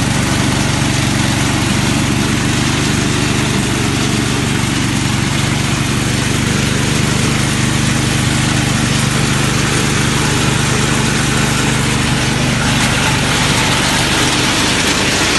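Hasatsan H 130 hazelnut harvester's small engine running at a steady speed, a constant hum with a rushing noise over it, as the machine sweeps up nuts from the leaf litter.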